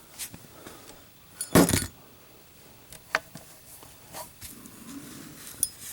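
Brass Zippo lighter with a steel insert handled in a drop test: scattered metallic clicks and clinks, with one louder clattering knock about one and a half seconds in.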